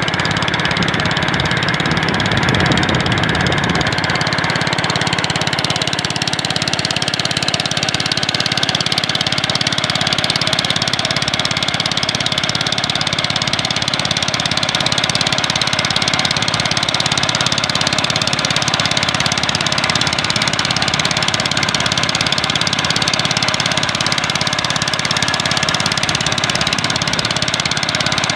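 The engine of a small wooden fishing boat running steadily while the boat is under way, with a constant, even level throughout.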